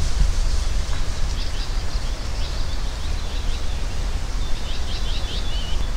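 Outdoor nature ambience: small birds chirping in short calls, more of them near the end, over a steady low rumble.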